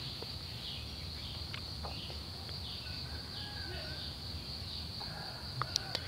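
A steady high-pitched insect buzz, like crickets, with a few faint clicks and light knocks from the washing machine's plastic casing being handled.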